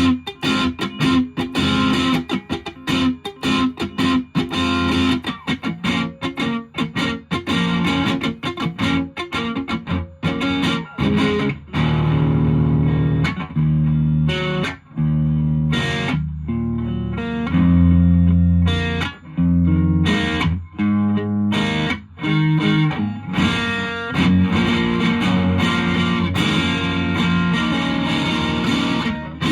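Distorted electric guitar, a Fender Japan Jazzmaster played through a 1985 Japanese-made Boss DS-1 distortion pedal into an ELK FSB-45 amplifier, picked up unprocessed by a smartphone microphone. For about the first eleven seconds it plays short, choppy notes with brief gaps. After that the chords and notes are held and left to ring.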